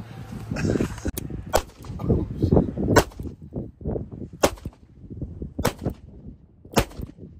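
A small snub-nosed revolver fired several times: about six sharp cracks roughly a second apart, the loudest about three seconds in and another near the end.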